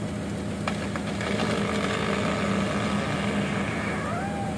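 Excavator's diesel engine running steadily under load as its arm pushes a cut kruing tree over.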